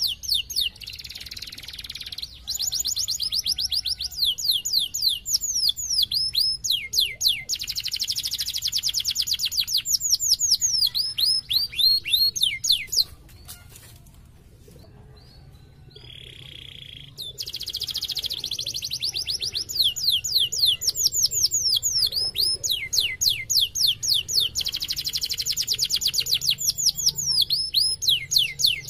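Domestic canary singing: long trills of fast, repeated down-sweeping notes, with a break of a few seconds about halfway through and a short buzzy note just before the trills start again.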